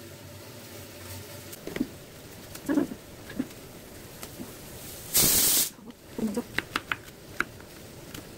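Knife cutting melon on a plastic cutting board: a few soft knocks, one loud half-second rush of scraping noise a little past halfway, then a quick run of light clicks and taps.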